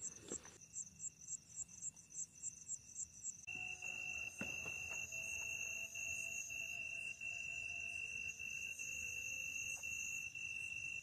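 Night insects chirping: first a fast high pulsing chirp, about three pulses a second, then from about three and a half seconds in a steady shrill trill joined by a second, lower continuous tone.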